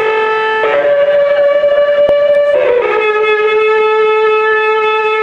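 Live music: a lead instrument holds long, steady, reedy notes, stepping up in pitch under a second in and back down about two and a half seconds in. There is a single short click midway.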